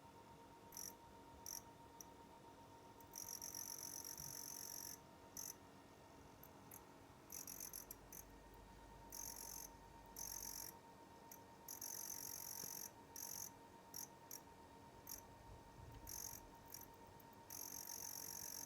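Storage heater making an abnormal high-pitched chirring noise that starts and stops in irregular spells, over a faint steady tone.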